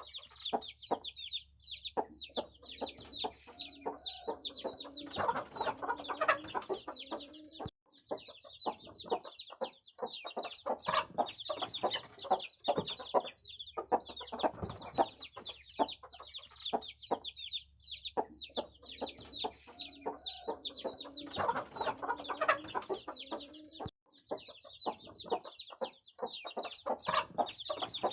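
Aseel chicks peeping nonstop, a dense chorus of high, quickly repeated falling cheeps. Lower clucking calls come in twice, a few seconds in and again past the middle, along with scattered light taps.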